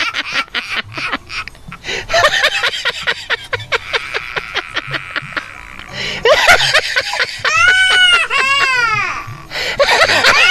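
Exaggerated comic laughing, rapid short bursts, that turns about six seconds in into loud wailing sobs: long cries that rise and fall in pitch, the "ahaha huhuhu" of a laugh breaking into crying.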